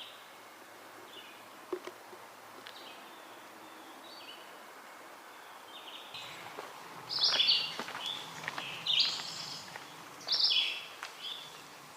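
Red-eyed vireo singing: short, separate phrases repeated every second or so, faint at first and louder from about seven seconds in.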